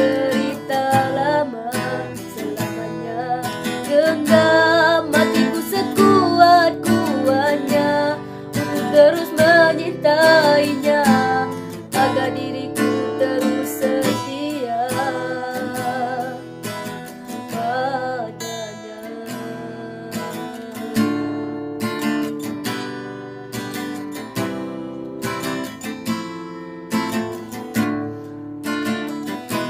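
Acoustic guitar strummed and plucked as the accompaniment to a Malay ballad. A sung line with wavering, held notes runs over it for about the first twelve seconds, then the guitar carries on alone, softer, to the end of the song.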